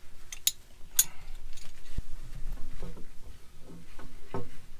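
Hand tools working on a boat's shaft coupling and puller: a few sharp metal clicks in the first second, then a single dull knock about two seconds in.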